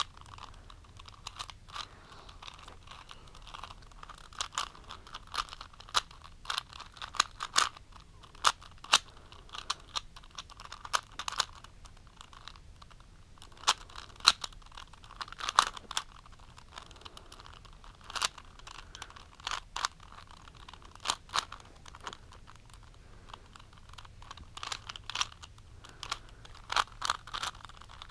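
3x3 Rubik's Cube being turned by hand while it is solved: quick irregular plastic clicks and clacks of the layers turning, coming in short runs with brief pauses between.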